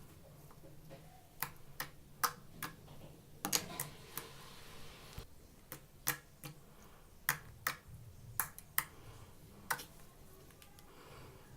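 Slime being pressed and poked, giving a string of sharp, irregular clicks and pops, with a brief soft squelching hiss about four seconds in.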